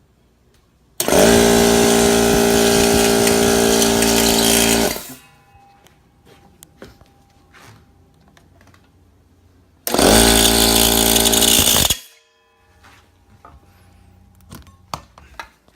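Husky 10-gallon air compressor's motor and piston pump running, twice: about four seconds, then about two seconds, each starting and stopping abruptly. It runs normally after the crankshaft was realigned in its housing, where before it only made a noise and tripped the breaker.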